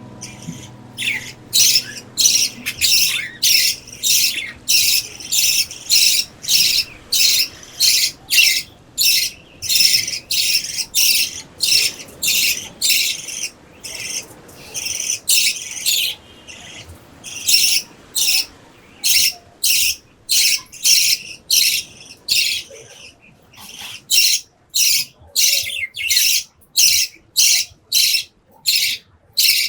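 Young budgerigars chirping in short, high calls repeated about twice a second, with a couple of brief lulls.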